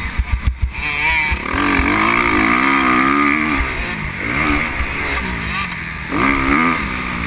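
Motocross dirt bike engine revving hard under the rider, its pitch climbing and falling as the throttle is worked and gears change, heard from a helmet-mounted camera with rough wind rumble. A few sharp thumps come in the first second, then the engine pulls strongly, eases off for a moment past the middle and climbs again near the end.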